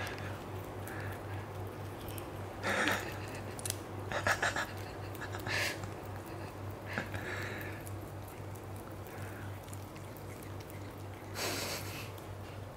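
A few short, soft sniffing and nibbling noises from a cat and a rabbit nosing at a dangled leafy stem, over a steady low hum. One cluster of several quick strokes comes near the middle, and a longer rustle comes near the end.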